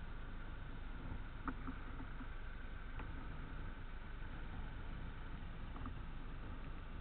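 A steady low engine rumble, with a few faint clicks.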